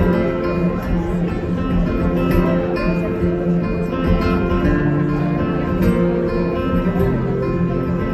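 Solo acoustic guitar played through a PA, picking an instrumental passage with notes ringing over a steady low bass.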